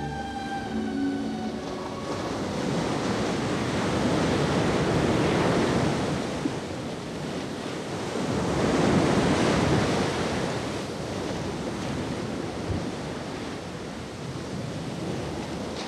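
Sea waves washing in on the performance soundtrack, the noise swelling and falling back every few seconds. The last notes of plucked string music fade out in the first two seconds.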